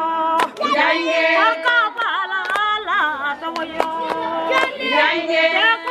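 Women singing unaccompanied in held, wavering notes, with several voices overlapping, punctuated by sharp percussive strikes at an uneven beat.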